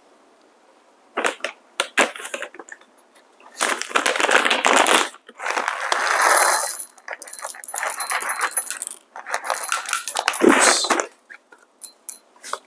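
Whole coffee beans poured in about five goes from a foil coffee bag into a metal-lined dosing cup on a scale, the beans clattering into the cup and the bag crinkling, while an 18 g dose is weighed out.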